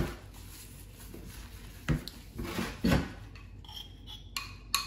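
Hands rubbing a melted-butter and spice marinade into a leg of lamb, with a few knocks against the dish. The loudest knock comes right at the start, and others follow about two and three seconds in.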